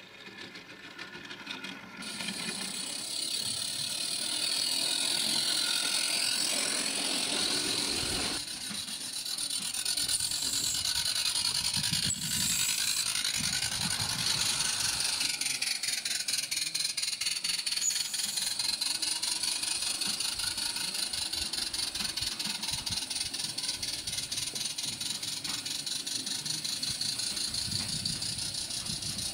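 Garden-railway model trains running on the track: a steady, fast rattle of wheels and running gear that grows louder over the first few seconds.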